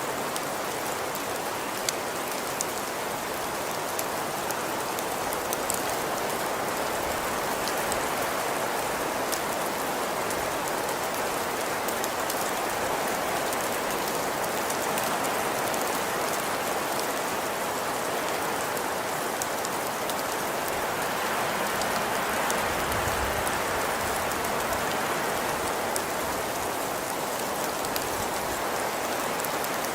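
Steady rain falling in an even hiss, with scattered light drop ticks.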